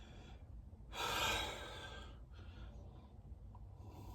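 A person's single breath out, like a sigh, about a second in and lasting under a second, over a faint low background hum.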